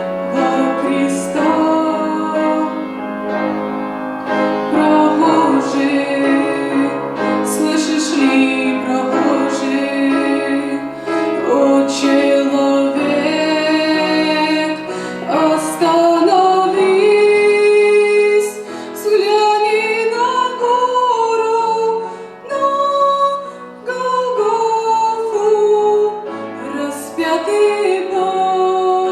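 A woman singing a song with piano or keyboard accompaniment.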